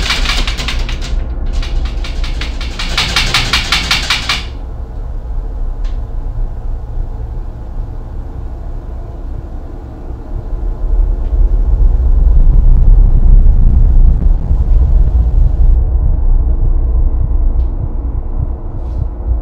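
A door's lever handle rattling rapidly, stopping about four seconds in, over a deep low rumble that swells to its loudest a little past the middle and then eases off.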